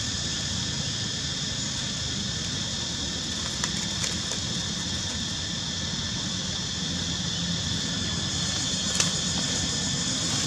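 Steady outdoor ambience: a constant high-pitched drone over a low rumble, with a faint tick about three and a half seconds in and another near nine seconds.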